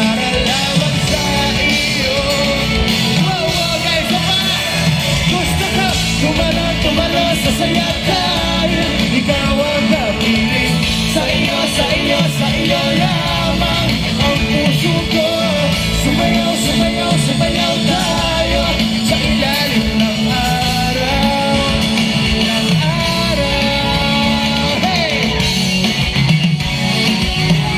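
Live pop-rock band playing with guitars and singing, some shouting mixed in.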